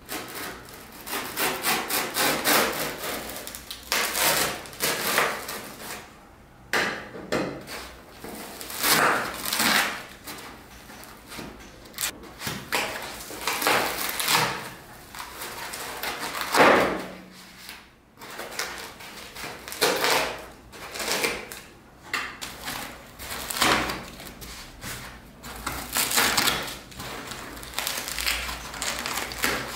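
Utility knife cutting into a black foam block and hands ripping chunks out of it. Repeated scraping, rubbing strokes of about a second each, the loudest a little past halfway.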